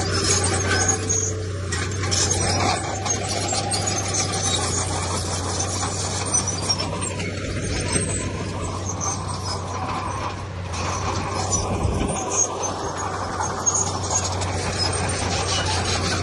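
Heavy diesel earthmoving machinery running steadily with a constant low drone, with squeals and rattling metallic clanks over it.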